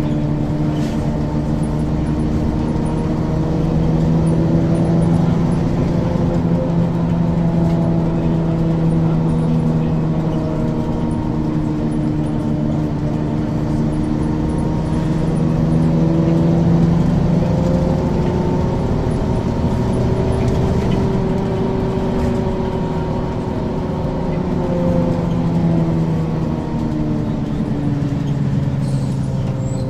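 1994 Ikarus 435 articulated bus with a ZF automatic gearbox, its diesel engine running under way. The engine note rises and falls several times as the bus speeds up and slows down.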